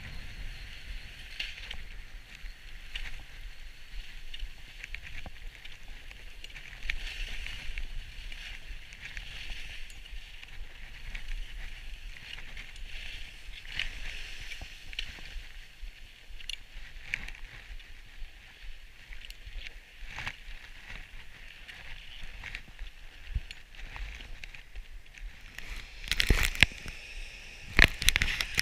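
Skis sliding and scraping over packed snow: a steady hiss with scattered small crackles and clicks. Near the end come a few loud, sharp knocks.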